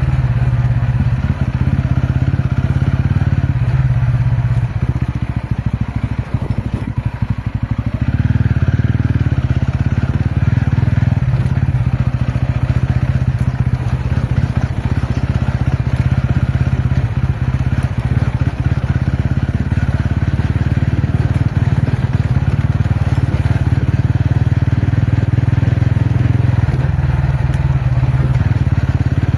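TVS Ronin's single-cylinder engine running steadily under way on an off-road ride. It eases off for a couple of seconds about five seconds in, then picks up again.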